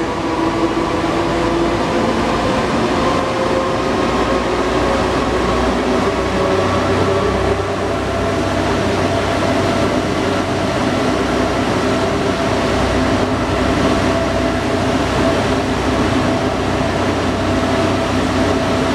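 CAF NS-07 rubber-tyred metro train running between stations, heard from inside the passenger car: a steady rumble of running noise with several faint steady tones over it.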